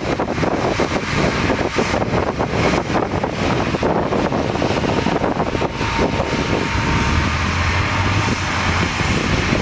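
John Deere 437E knuckle-boom log loader running hard, its diesel engine and hydraulics working as the boom swings a tree-length log, with a thin steady whine for a few seconds midway and the engine hum rising in the second half.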